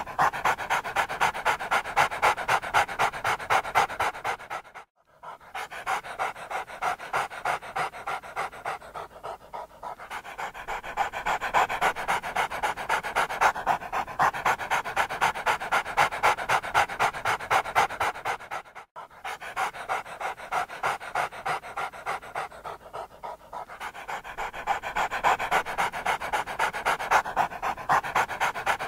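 A large dog panting hard, quick and even, with two brief breaks.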